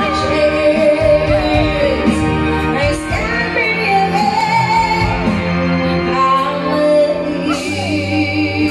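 Live band playing a slow rock ballad, a woman singing the lead over bass and keyboard.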